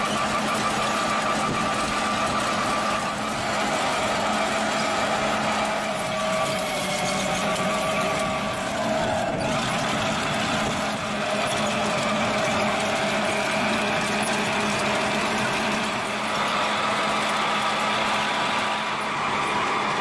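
Trenching machine running steadily as it digs, a continuous engine drone.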